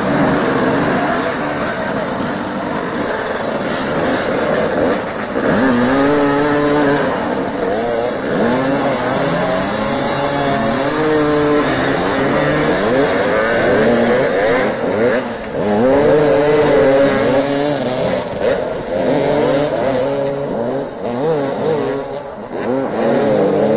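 Several motoball motorcycles revving at once, their engine notes repeatedly rising and falling and overlapping as the riders accelerate and brake around the ball.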